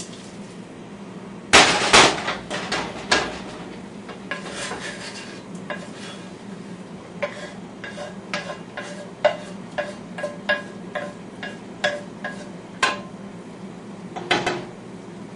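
Metal cookware clattering: two loud clanks from a pot and its lid, then a run of light ringing taps, about two a second, as a metal utensil knocks against the frying pan. It ends with a short scrape.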